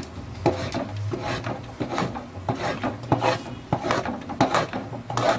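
A metal spoon stirring thick chana dal halwa in a large aluminium pot, scraping the bottom and sides in quick repeated strokes, about two a second, as almonds and raisins are mixed in.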